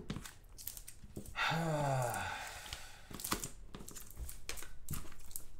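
Hard plastic graded-card slabs clicking and clacking against each other as they are handled and shuffled. A man's brief wordless vocal sound, falling slightly in pitch, comes about a second and a half in.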